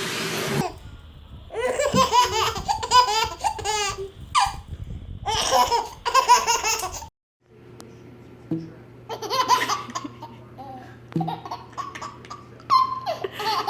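A baby laughing in repeated bursts, broken by a brief silence about seven seconds in, then laughing again over a steady low hum.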